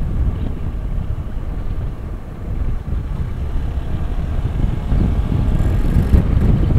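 Wind rumble on an action camera's microphone while riding a Hero Xpulse 200 4V, with the bike's single-cylinder engine running underneath. Steady throughout, a little louder near the end.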